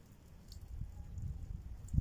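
Wind buffeting the microphone: an irregular low rumble that grows louder about half a second in.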